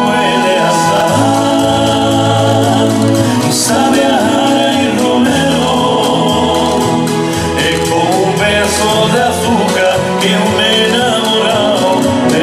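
Pasodoble music playing, a band with singing over it.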